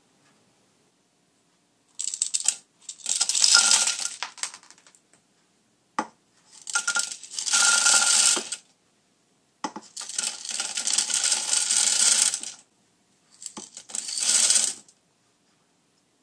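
Jolly Pong puffed wheat cereal poured into an empty plastic blender jar, the light pieces rattling against the plastic. It comes in four separate pours of a couple of seconds each.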